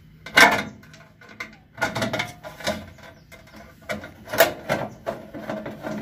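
Clanks and scrapes of a gas geyser's sheet-metal front cover being fitted and screwed on with a screwdriver, the sharpest clank about half a second in, then several more.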